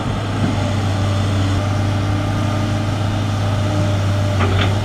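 Large excavator's diesel engine running steadily with a low, even hum.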